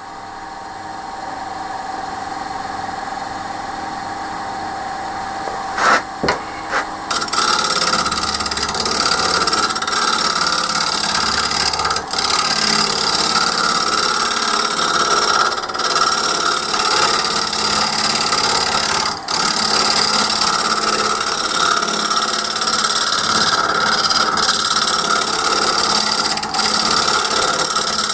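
Wood lathe running with a bowl spinning, its motor giving a steady hum. About seven seconds in, a gouge goes onto the wood and takes fine finishing cuts on the outside of the bowl: a steady shearing hiss with a few short breaks where the tool lifts off.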